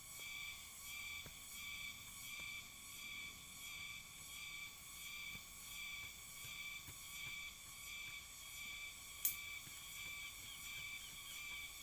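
Insects calling in a steady, high-pitched chorus that pulses about twice a second. A single sharp click comes about nine seconds in.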